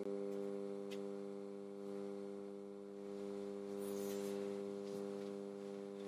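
Steady electronic hum: a low drone of several even tones held throughout, swelling and fading slightly in level.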